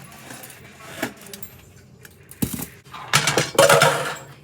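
Kitchen clatter of dishes and utensils being handled: a few knocks, a sharp one about two and a half seconds in, then a louder jangling rattle for about a second near the end.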